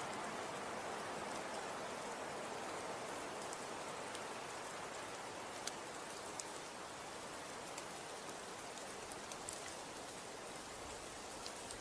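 Snow falling and settling on surfaces: a steady soft hiss with scattered faint ticks of flakes landing.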